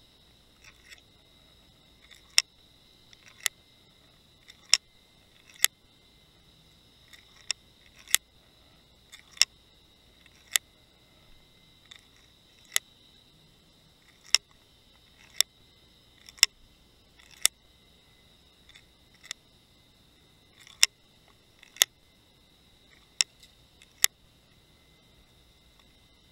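Underwater sound from a camera rig on the seabed: sharp clicks roughly once a second at uneven spacing and strength, over a faint steady high whine.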